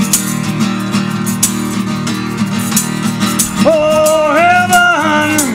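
Live band music: strummed acoustic guitar with regular percussive ticks, and a voice coming in about two-thirds of the way through with a long held, wavering sung note.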